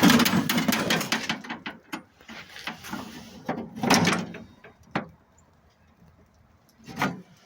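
Handling noise: a loud clatter at the start, then scattered knocks, rattles and a short sliding scrape, with a louder knock about four seconds in and another near the end.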